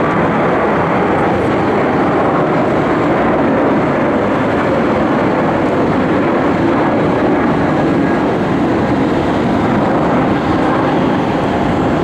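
Boeing 737-700's two CFM56-7B turbofan engines at climb thrust just after takeoff, a steady, loud jet noise with no change in level.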